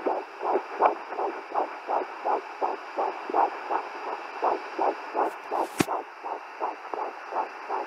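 A home fetal Doppler's speaker plays an 11-week fetal heartbeat: fast, even pulses of whooshing sound, about three a second, over a steady hiss. There is a single short knock a little before six seconds in.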